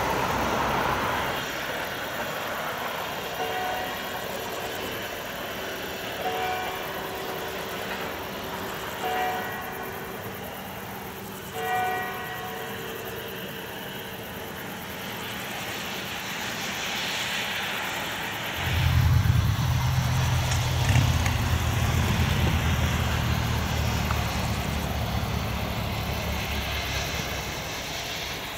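Steam locomotive working uphill in the distance, giving four short whistle toots about three seconds apart. About two-thirds of the way through, a loud low engine drone starts suddenly and becomes the loudest sound.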